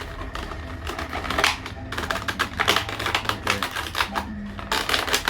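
Quick irregular clicks and rattles of plastic packaging being handled as twist-tie wires are worked off an action figure's feet.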